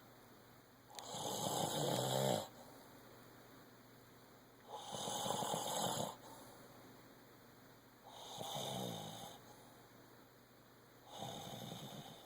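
A person snoring in four long rattling snores, about three and a half seconds apart, the last two weaker than the first two. The snoring is put on: faked snores.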